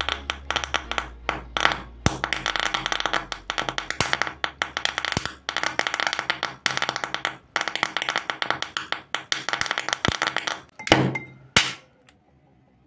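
Rapid, irregular crackle of small pops as HHO (hydrogen–oxygen) gas bubbles ignite at the water surface, with two louder pops about eleven seconds in. The popping then stops abruptly.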